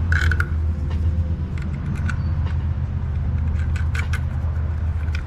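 Light clicks and clinks of small metal mounting hardware being handled by hand, over a steady low hum that cuts off suddenly at the end.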